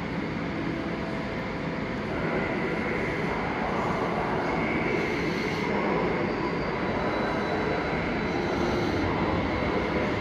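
Steady running noise of a DB Class 146 electric locomotive and its S-Bahn train, getting a little louder after about two seconds.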